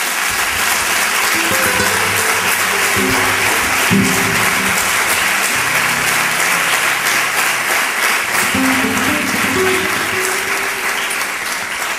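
Audience applauding steadily, starting right after the speaker pauses and stopping suddenly near the end, with soft background music underneath.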